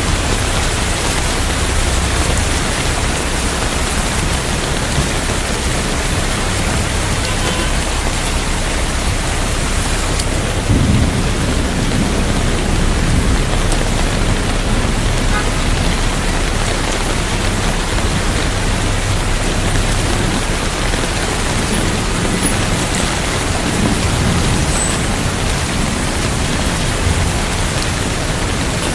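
Steady heavy rain falling, with a low rumble of thunder that rolls in about eleven seconds in and lingers.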